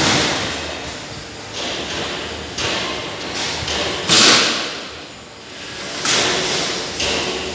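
Sheet-steel roller shutter slats scraping and rattling on the assembly table, in four or five bursts that start sharply and die away. The loudest comes about four seconds in.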